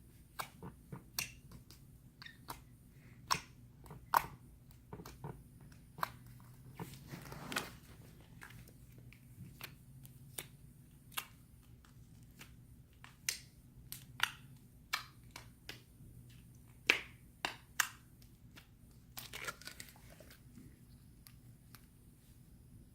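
Sticky homemade slime, short on borax, being poked and squished by hand, giving irregular sharp clicks and pops.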